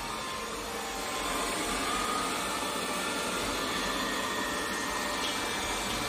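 Robit V7s Pro robot vacuum cleaner running on a hardwood floor in random cleaning mode: a steady rushing noise with a faint whine, getting slightly louder about a second in.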